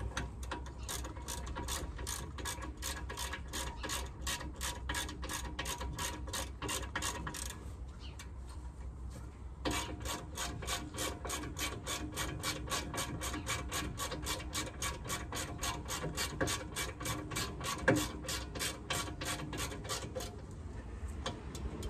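A hand ratchet with a 21 mm double spline socket clicking steadily, about three or four clicks a second, as the caliper bolts on a Range Rover's front Brembo brake caliper are run in. The clicking pauses briefly about eight seconds in, then resumes for the next stretch of turning.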